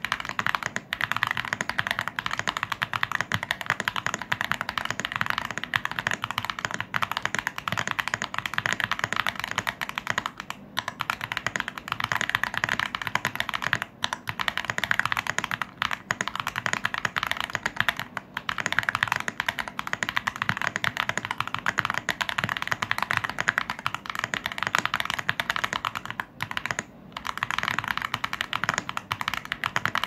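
Fast, continuous typing on a Sheesh40 V2 split 40% mechanical keyboard, handwired hotswap with an acrylic case and plate, fitted with unlubed Haimu Sea Salt tactile switches and Aifei white-on-black keycaps. The rapid key strokes pause briefly a few times.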